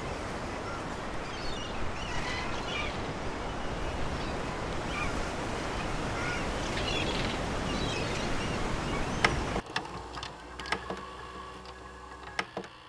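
A flock of seabirds calling over a steady wash of wind and surf. About ten seconds in it drops to a quieter hiss with a few sharp clicks.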